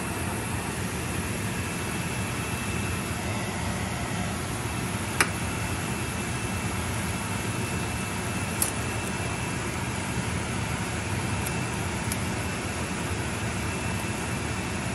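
Hot oil sizzling steadily in a cooking pot as ingredients sauté, with two sharp clicks, the first about a third of the way in and a fainter one just past halfway.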